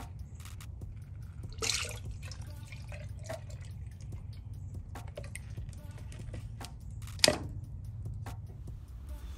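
Silver flake basecoat being stirred and poured: a wooden stir stick scraping and clicking in a plastic mixing cup and liquid paint pouring, with a sharp knock about seven seconds in as the loudest sound. A steady low hum runs underneath.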